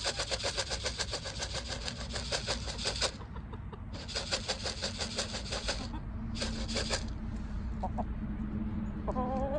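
Corn kernels rattling in a plastic coffee canister shaken by hand, a fast even rattle in three bouts: two long ones, then a short shake. A hen clucks near the end.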